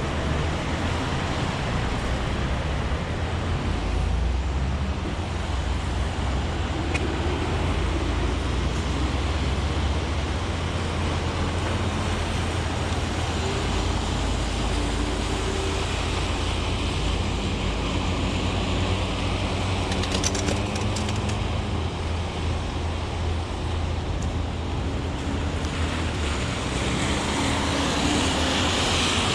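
Heavy rain falling on a city street amid road traffic: a steady hiss of rain over a low rumble of passing vehicles, with a vehicle's engine hum in the middle stretch and a louder hiss of tyres on the wet road near the end.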